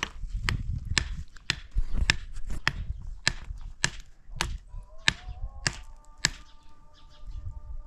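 Repeated hard blows of a hand tool in building work, about a dozen at a steady pace of a little under two a second, stopping about six seconds in. A faint steady tone comes in near the end.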